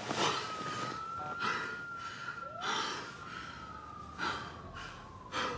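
A man's short gasping breaths, five of them about a second apart, over a single thin high tone that slowly sinks in pitch.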